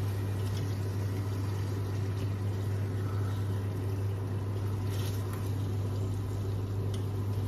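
A steady low hum under soft sizzling of chicken and masala cooking in a pot, with a couple of faint clicks of a serving spoon against the pot in the second half.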